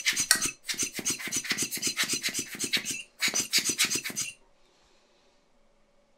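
Screwdriver turning a screw into the Osram CLC 3.0 BiLED headlight projector's housing: quick rasping strokes, about five a second, with a brief pause near three seconds. It stops about four seconds in and leaves near silence.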